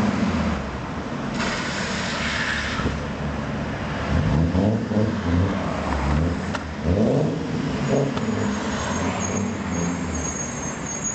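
Fiat Marea's engine through a two-pipe exhaust, rumbling loud: idling, then revved in several short blips through the middle, each rising and dropping back.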